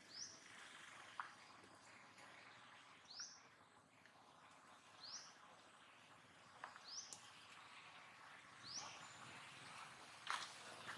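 A bird repeating one short, high chirp about every two seconds over faint outdoor background hiss, with a few soft clicks near the end.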